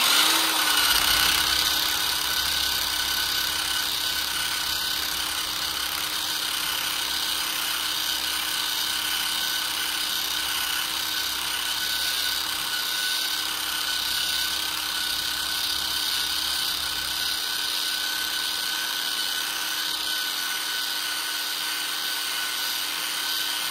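Eastwood SCT surface conditioning tool running steadily, its red abrasive drum scuffing a quarter-inch aluminium plate clamped in a vise: a constant motor whine under a strong hiss of abrasive on metal.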